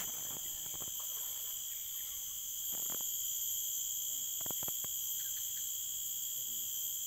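Steady high-pitched drone of an insect chorus from the forest, with a few faint clicks.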